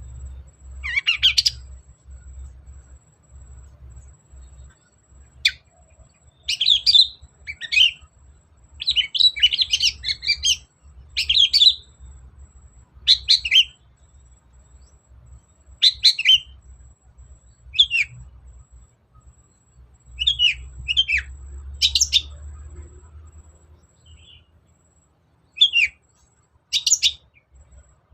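Long-tailed shrike singing in short bursts of rapid, high chirping phrases, about a dozen of them spaced irregularly a second or two apart.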